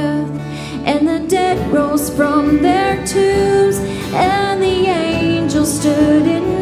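Live contemporary worship song: a woman singing lead, holding and bending long notes, over a band with acoustic guitar, keyboard and bass.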